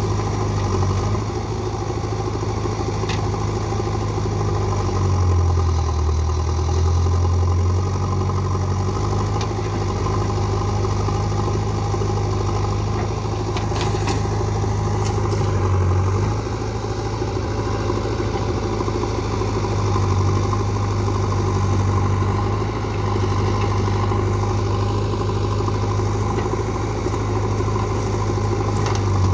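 Diesel engines of a JCB 3DX backhoe loader and an Eicher tractor running steadily side by side, the engine note dropping and rising again a few times as the loader works. A couple of brief clatters about halfway through.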